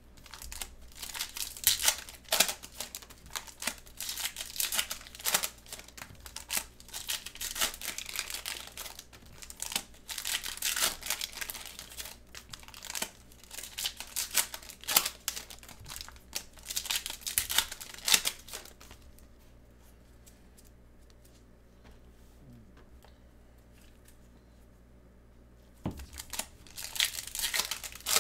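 Foil wrappers of Panini Prizm basketball card packs being torn open and crinkled by gloved hands, in irregular bursts of crackling. About two-thirds of the way through the crinkling stops for several seconds, then starts again near the end.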